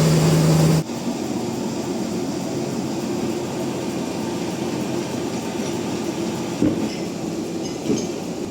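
Sawmill machinery running steadily. A louder machine tone cuts off abruptly just under a second in, leaving a lower steady hum, with two short knocks near the end.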